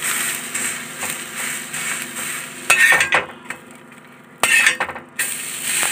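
Bread sizzling in oil on a hot tava, with a steel spatula scraping and clinking against the pan about three seconds in and again near four and a half seconds. The sizzle briefly thins out between these strokes.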